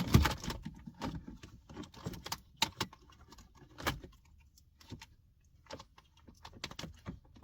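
Irregular small clicks, taps and rattles of hard plastic car interior trim and a wiring plug being handled and unclipped, busiest in the first second and again around four seconds in.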